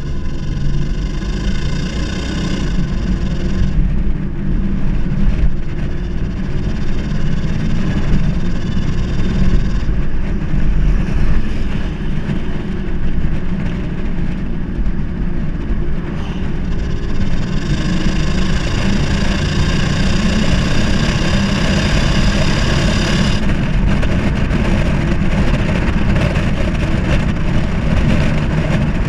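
Holden Commodore VR's 3.8-litre V6 engine and exhaust running and being revved, louder and brighter near the start and again about two thirds in. The owner reports that under acceleration it makes a weird stuttering sound and is slow to rev up.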